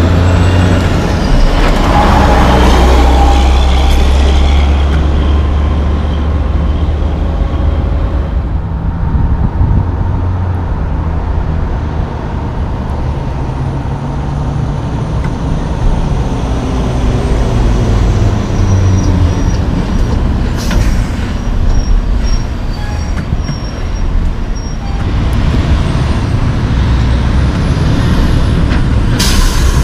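Heavy diesel logging trucks going by on a street. A deep engine rumble is strongest in the first few seconds, traffic noise carries through the middle, and near the end a loaded long-log truck with its multi-axle trailer rolls past close by. Short, sharp air hisses, typical of air brakes, come about two-thirds of the way in and again just before the end.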